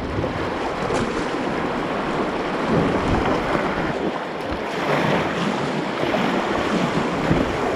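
River water rushing through a rapid around a kayak, a steady noisy rush with wind buffeting the microphone.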